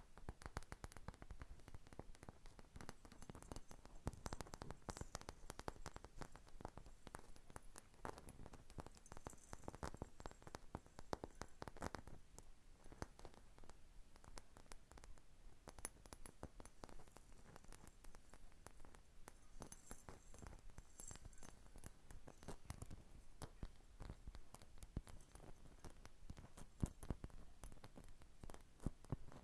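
Faint, close-up fingernail tapping and scratching: a dense run of quick, light clicks and crackle.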